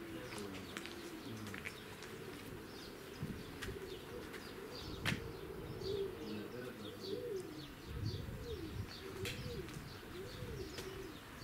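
Birds calling: low cooing calls that rise and fall, repeated over and over, with small higher chirps. One sharp click comes about five seconds in.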